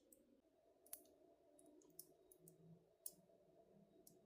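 Near silence with a few faint, light clicks, roughly one a second, from plastic window-blind parts being handled.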